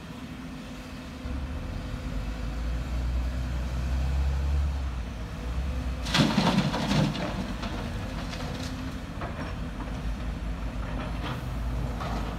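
Diesel engines of Sumitomo SH210 hydraulic excavators running under load, a deep rumble that swells for a few seconds. About six seconds in, a bucketload of laterite soil and stones pours into a steel dump-truck bed with a loud clattering rush, followed by a few smaller knocks and rattles.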